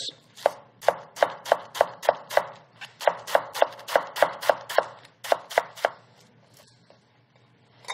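Chef's knife shredding lettuce on a wooden cutting board: quick, even cuts about four a second, stopping about six seconds in.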